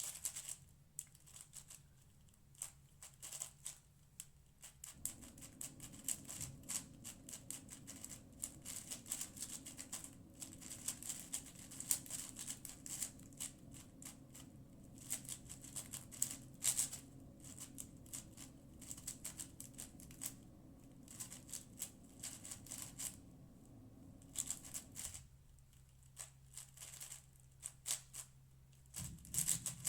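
Cosmic Shadow M 6x6 speedcube being turned quickly during a timed solve: a fast, irregular stream of sharp plastic clicks and clacks with brief pauses. A faint steady low hum sits under it from about five seconds in until near the end.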